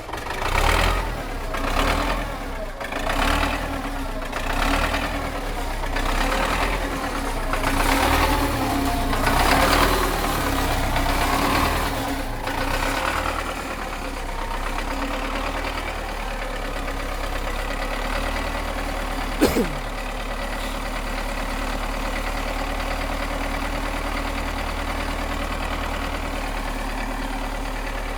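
Belarus MTZ-82 tractor's four-cylinder diesel being cranked in a cold start at −11 °C, not yet catching: uneven pulsing for the first dozen seconds, then a steady drone. A single sharp click with a quickly falling tone comes about 19 seconds in.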